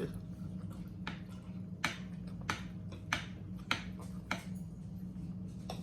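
Mouth smacks and wet clicks of someone chewing food, a sharp click about every half second, over a steady low hum.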